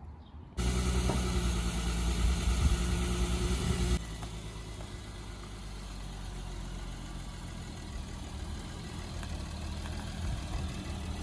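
VW Passat 3.6 V6 engine idling steadily. It comes in suddenly just after the start, is louder for about three seconds, then drops abruptly to a quieter, even idle.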